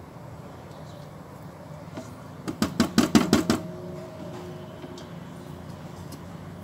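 A rapid run of about eight sharp knocks within about a second, around the middle, like a kitchen utensil tapped against a mixing bowl while butter is added, with a faint ring after.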